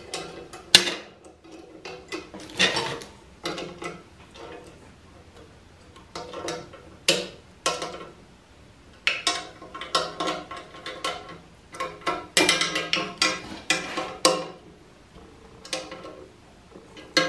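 Small ratchet with a 12 mm socket clicking in short, irregular bursts as the bolts holding a bench grinder's tool rest are snugged up, with metal clinks of the bolts being handled.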